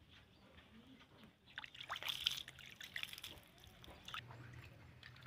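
Water splashing and trickling in a plastic basin as a wet baby monkey is dipped in and lifted out, water running off its fur back into the basin; the splashing starts about a second and a half in.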